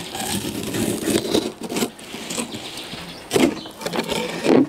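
Flexible fillet knife slicing along a sockeye salmon's spine, making irregular scraping and cutting strokes through the flesh, with a couple of louder knocks near the end as the fillet is cut free at the tail.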